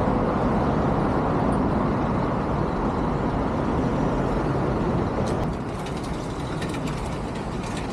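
Steady roar of road traffic along a busy city street, easing a little after about five seconds, with a few light clicks near the end.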